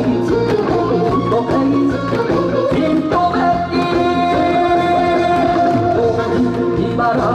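Upbeat Korean trot backing track with a singing voice, with go-go janggu drums struck with sticks in time to it. A long held melody note sounds through the middle.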